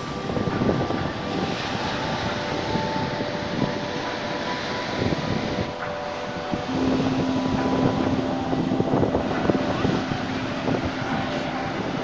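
Sea surf breaking and washing up the sand, with wind buffeting the phone's microphone. A faint steady tone is held through the second half.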